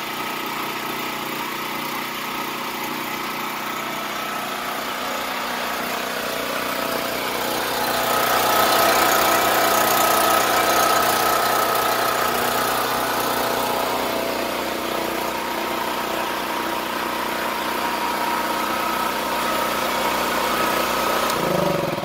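Champion 3500-watt portable generator's single-cylinder four-stroke engine running steadily, just started on two-year-old stabilized fuel. It is kind of noisy, growing louder about eight seconds in and then easing off a little.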